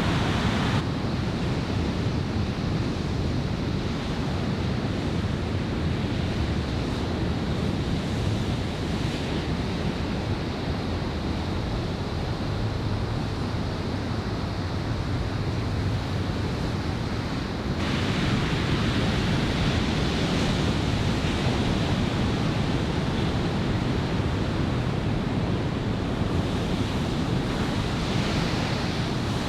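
Ocean surf from a typhoon swell breaking steadily, with onshore wind buffeting the microphone. The hiss grows brighter about two-thirds of the way through.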